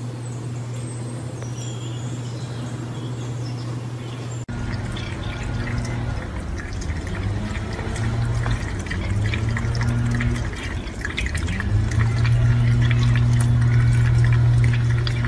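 For the first few seconds, a steady low hum with faint high chirps. Then a kitchen faucet runs a thin stream into a stainless steel sink, with splashing and dripping as cats drink from the stream, over a low hum that wavers in pitch.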